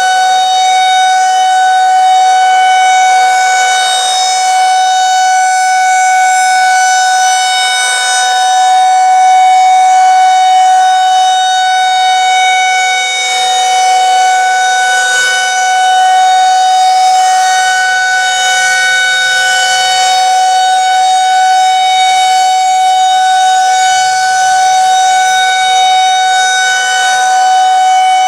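Federal Signal 2001-130 rotating outdoor warning siren sounding a loud, steady tone at a constant pitch for its monthly test. The tone swells and fades slowly every several seconds as the siren head turns.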